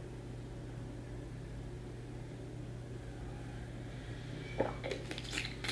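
Steady low hum in a small room, with a few faint clicks near the end.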